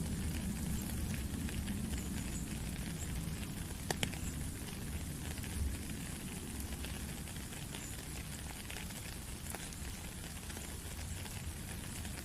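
Steady rain: a dense crackling patter of raindrops over a low rumble, with one sharper drop tap about four seconds in.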